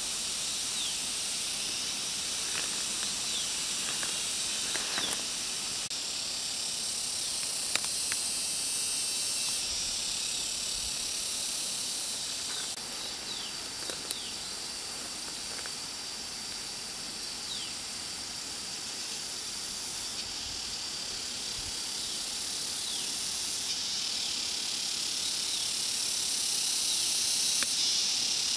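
A steady, high-pitched chorus of insects, its pitch bands shifting every few seconds, with brief high falling chirps scattered through and a few light clicks as plants are picked.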